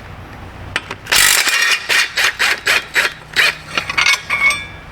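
A hand ratchet wrench clicking in a run of quick strokes as a bolt is loosened in the engine bay, starting about a second in.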